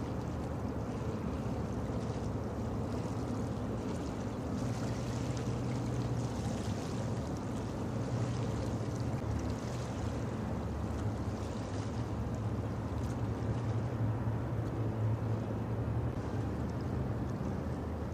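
Steady low engine drone of a large roll-on/roll-off cargo ship under way, an even hum that runs on without change.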